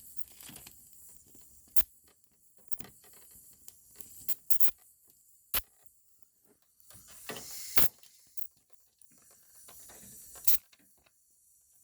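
Oxy-fuel gas welding torch hissing faintly while welding in a patch, with irregular sharp pops and crackles, the loudest about two, five and a half, eight and ten and a half seconds in.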